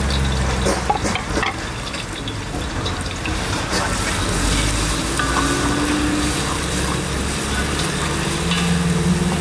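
Chopped onions sizzling as they drop into hot ghee and oil in a metal pot, then stirred with a wooden spatula, with a few sharp clicks in the first couple of seconds. A low steady hum runs underneath.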